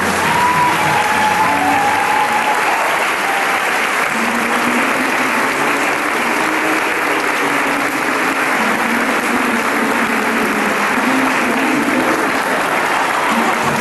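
Audience applauding steadily, with faint music underneath.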